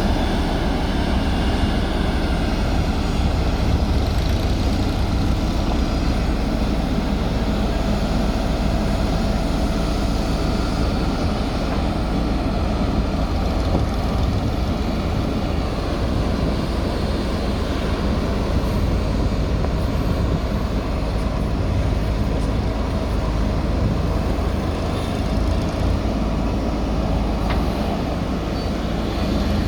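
JCB backhoe loader's diesel engine running steadily under work.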